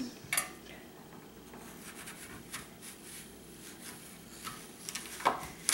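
A thin utensil scraping and clicking into a raw apple as its core is dug out: faint scrapes with a few sharp clicks, the loudest near the end.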